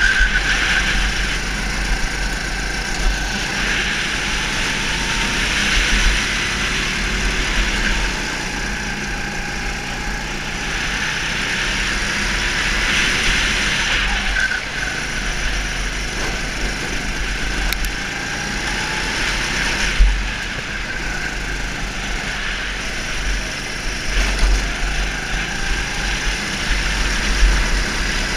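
Go-kart engine running at speed, its pitch rising and falling several times as it accelerates and lifts, with a constant low rumble throughout.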